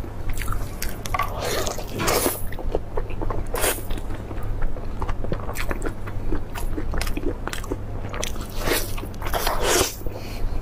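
Close-miked eating of braised beef rib: biting and chewing, with many small mouth clicks and a few louder smacks, over a steady low hum.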